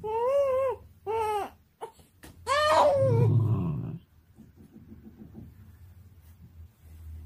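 Siberian husky 'talking': three drawn-out whining calls, the third longer and falling in pitch.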